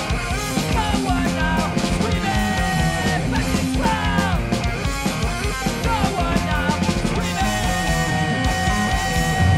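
Rock band playing live: distorted electric guitar, bass and drum kit, with a singer's voice over them. A single note is held steadily from about seven seconds in.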